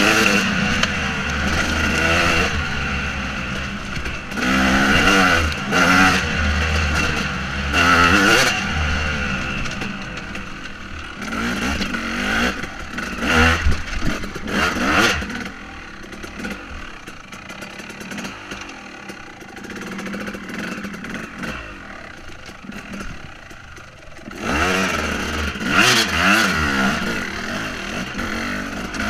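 2014 KTM 250 SX two-stroke single-cylinder engine revving up and down as the dirt bike is ridden, with some sharp knocks about halfway through. It drops to quieter low-rev running for several seconds past the middle, then revs up again near the end.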